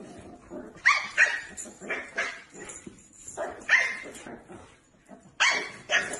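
Small puppy barking at a larger dog: a string of short, high-pitched barks at irregular intervals, warding the husky off its food bowl.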